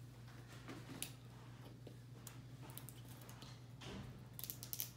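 Faint scattered clicks and crinkles of an L.O.L. Surprise ball's plastic wrapping being picked at and peeled by hand, with a quick run of crackles near the end.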